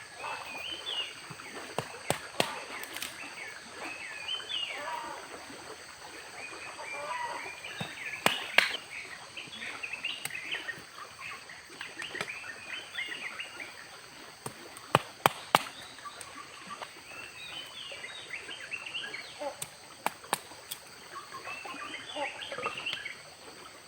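Forest birds chirping in bouts of quick, rising and falling notes, over a steady high-pitched drone. Sharp knocks come every few seconds, some in pairs.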